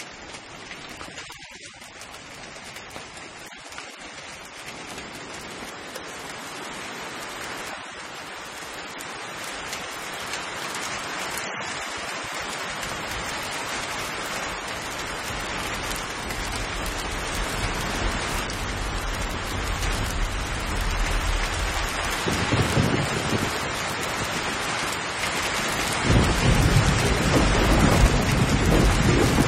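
Rainstorm sound effect: rain starts light and grows steadily heavier. About halfway in, low rolling thunder joins it, with two heavier thunder rumbles near the end.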